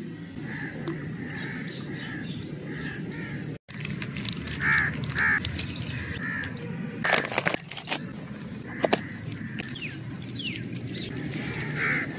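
Crows cawing repeatedly in short calls, with the sharp crackle of a plastic candy wrapper being opened and handled at its loudest about seven to nine seconds in.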